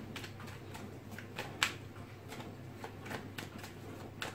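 A deck of tarot cards shuffled by hand: a run of faint, irregular card snaps and slides, with a sharper snap about one and a half seconds in.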